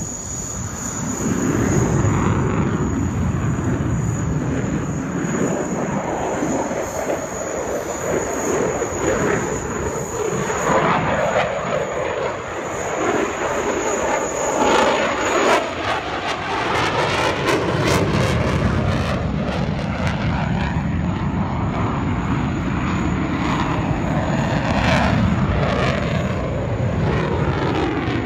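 Eurofighter Typhoon's twin EJ200 turbofan jet engines roaring steadily during a display flight, with a sweeping, phasing swirl in the middle as the jet passes.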